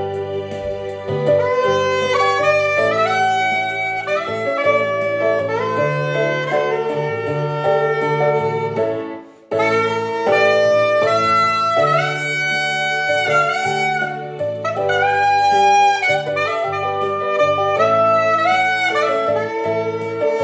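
Chempo soprano saxophone playing a melody of quick runs and held notes over a backing track with a steady bass line. The music stops for a moment about nine seconds in, then comes straight back.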